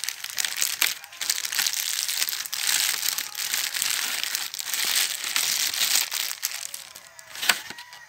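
Thin clear plastic bag crinkling and crackling as it is handled and pulled off a packaged USB cable's plastic tray, with one sharp click near the end.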